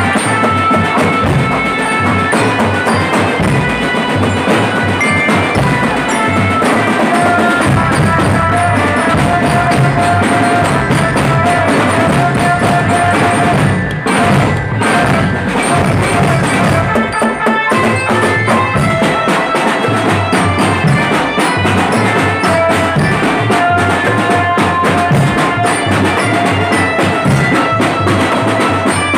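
Drum band playing: bass drums, snares and tom sets drumming hard and fast, with held melody notes over the drums. The drumming briefly breaks off about halfway through, then comes back in.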